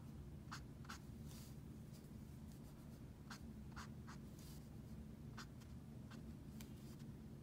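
Faint, short strokes of an Ohuhu alcohol marker's soft brush-like tip on paper, a dozen or so dabs and strokes spread irregularly, over a low steady hum.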